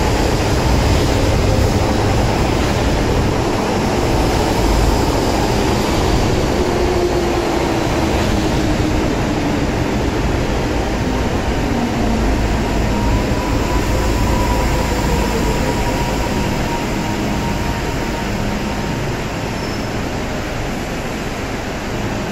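MTR M-train electric multiple unit running into the platform and slowing: a steady rumble of wheels and running gear, with the motors' whine gliding in pitch as it brakes. It eases off a little toward the end as the train comes to a stand.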